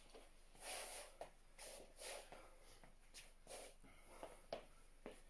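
Near silence with a few faint, short breathy rustles from a person breathing and moving as he lowers himself onto an exercise mat.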